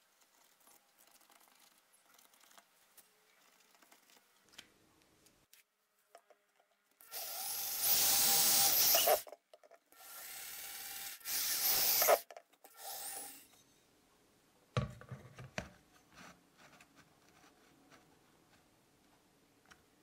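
Electric drill boring holes through a plastic washing-machine pulsator: three runs of drilling in the middle, the first two about two seconds each and the last short. Faint handling of the parts before and after, with one sharp knock about 15 seconds in.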